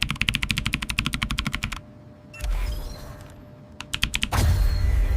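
Intro sound effects: a rapid, perfectly even rattle of clicks, about a dozen a second, that stops sharply near the 2-second mark. A short swish follows, then a few clicks and a loud, deep boom.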